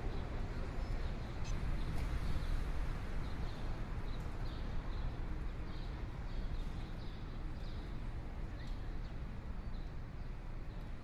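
Steady outdoor background noise, mostly low rumble, with a bird chirping in short repeated calls, about two a second, through the middle.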